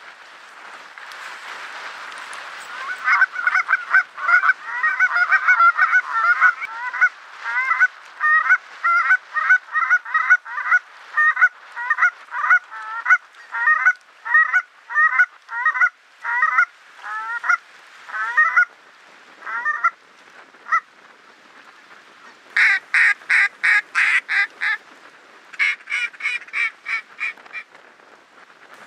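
Geese honking: a long run of short, rising honks, several birds calling over one another, about two a second. Near the end come two faster bursts of sharp, evenly spaced honks.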